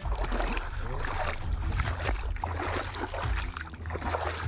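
Wind buffeting a phone's microphone: a loud, uneven low rumble over a steady rushing hiss.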